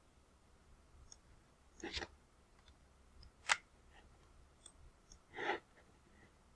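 Three isolated clicks from computer operation over a faint low room hum: a short, sharp click in the middle is the loudest, with a slightly longer, duller click about 1.5 s before it and another about 2 s after it.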